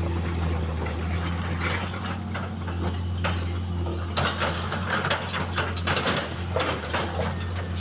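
Road construction machinery: a steady low engine drone with fast mechanical rattling and clanking over it, rising and falling in strength.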